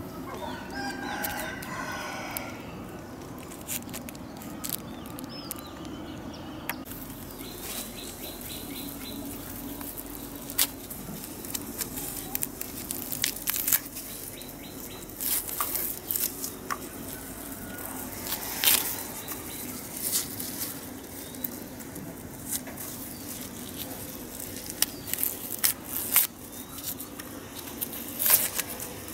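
Hands peeling the dry, papery skin off an onion: scattered crackles and sharp clicks of skin tearing and being handled, over a steady low hum. A bird calls in the first few seconds.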